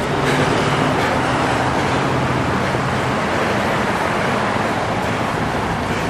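Steady road traffic noise from cars passing on a busy city street: tyres and engines going by. A low engine hum runs under it and fades out a little past the middle.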